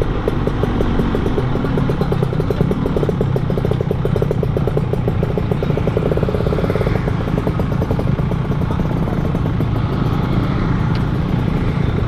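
A Yamaha RX-King's two-stroke single-cylinder engine running at a steady cruise while riding, its rapid exhaust pulses even throughout, over a low rush of riding noise.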